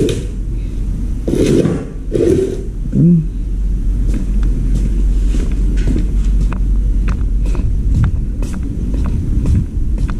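Footsteps on concrete, a series of sharp irregular clicks from about four seconds in, over a steady low rumble on the microphone, with a few short voice sounds in the first few seconds.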